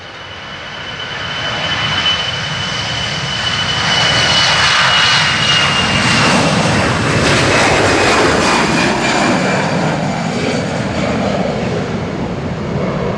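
Passenger aircraft's engines at high power as the plane takes off. The engines grow louder over the first few seconds and then hold, with a high whine that slowly falls in pitch.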